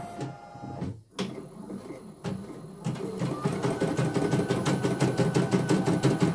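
CNY E900 computerised embroidery machine starting a design. A short tone and a few clicks come first. About three seconds in it begins stitching with a rapid, even needle rhythm over a steady motor whine.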